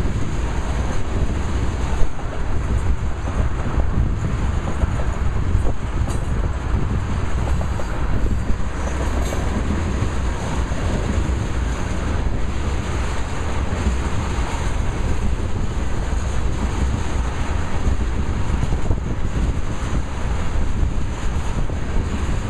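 Tank cars of a freight oil train rolling steadily past, steel wheels running on the rails. Heavy wind buffets the microphone throughout.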